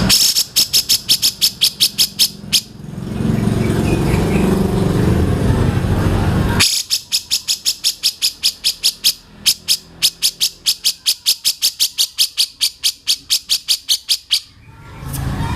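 Bird calls: rapid runs of sharp, evenly repeated notes, about five or six a second, in two long bursts, with a steady low rumbling noise between them.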